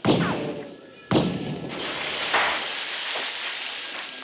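Two loud gunshots about a second apart, a revolver fired into a coin-operated machine. A long crashing clatter of the machine breaking apart follows and fades toward the end.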